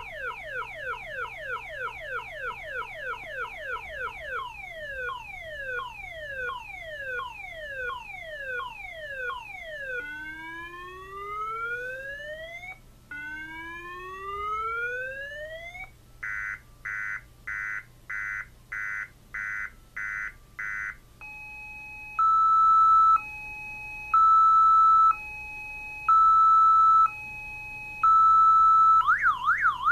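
Six-tone car alarm siren, covered face down and powered from a battery, cycling through its tones. It starts with rapid falling chirps, moves to slower falling sweeps, then two long rising wails and a pulsed beeping tone. The loudest part is a two-tone hi-lo alternation, and the fast up-down warble begins again at the very end.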